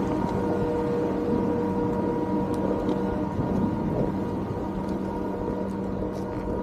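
Chairlift machinery humming steadily over a low rumble, with several steady tones; a couple of the tones drop out about three seconds in.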